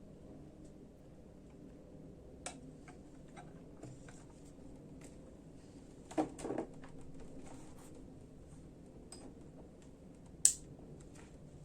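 Quiet room tone with scattered small clicks and taps of objects being handled. There is a short cluster of soft knocks around the middle and one sharper click near the end.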